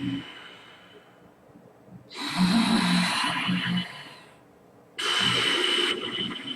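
Ocean-hissing-sound pranayama breathing: two loud, hissing breaths through the nose with the windpipe contracted. The first begins about two seconds in and lasts nearly two seconds with a low throaty rasp; the second, about five seconds in, is shorter and starts abruptly.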